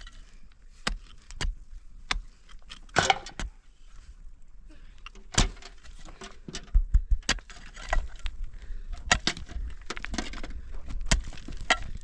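Irregular sharp knocks and clicks, a few each second, with low thumps among them, busiest in the second half.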